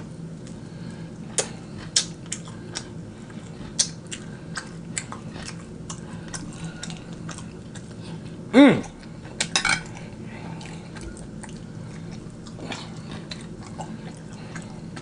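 Close-up eating sounds: chewing and mouth clicks from mouthfuls of rotisserie chicken and macaroni and cheese, with light clicks of a fork, and a brief vocal hum with falling pitch about eight and a half seconds in.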